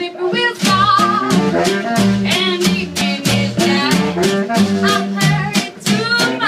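A live swing band playing: a woman sings with vibrato over an upright bass line that changes note on each beat, with a drum keeping a steady beat.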